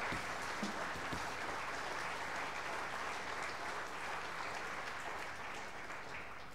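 Theatre audience applauding, a steady patter of many hands clapping that dies away near the end.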